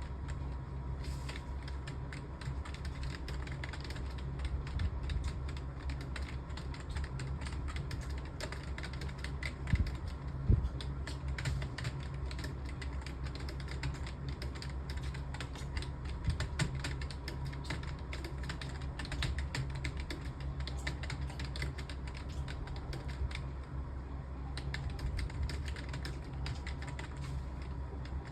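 Fast, continuous typing on a computer keyboard, many keystrokes a second, with a couple of louder knocks about ten seconds in, over a steady low hum.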